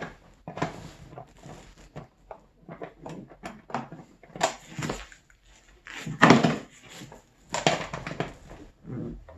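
Hands working a plastic snowmobile tail light assembly into its mount: irregular plastic knocks, clicks and scrapes, with a louder knock about six seconds in and another near the end.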